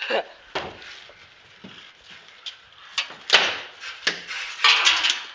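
A few sharp knocks and clatters, with two louder bursts of rustling, the last near the end.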